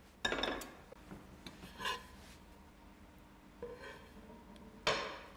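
Kitchen handling sounds: a few short scrapes and knocks as a metal roasting pan and utensils are moved and set down. The loudest come just after the start and near the end.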